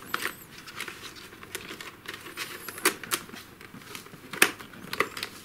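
Hands working plastic intercom parts and cables into a motorcycle helmet's fabric and foam lining: a string of small clicks and taps over soft rustling, with the sharpest clicks about three seconds in and again near four and a half seconds.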